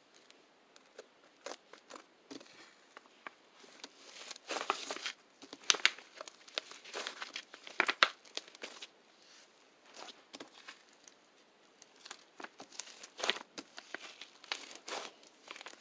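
Irregular crinkling and crackling from something being handled by hand, sparse at first, denser from about four seconds in and again near the end.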